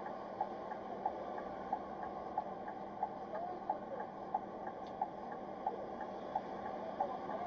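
A vehicle's flasher relay ticking evenly, about one and a half ticks a second, over a steady hum of engine and road noise heard from inside the stationary vehicle.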